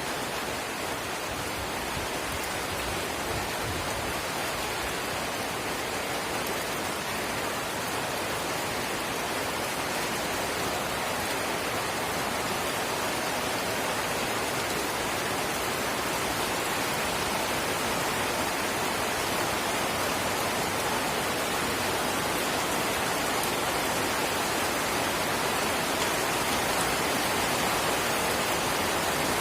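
Light drizzle falling steadily as a continuous, even hiss of fine raindrops, growing slightly louder over the stretch.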